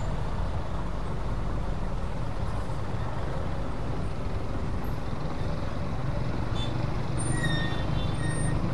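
Road traffic driving over the rails of a level crossing: cars, a light box truck and motorcycles passing, their engines making a steady low rumble. A couple of faint, brief high squeaks come near the end.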